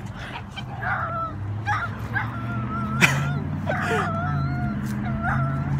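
A dog whining in a string of short, wavering high cries over a steady low hum; it is excited at the sight of another dog and wants to greet it.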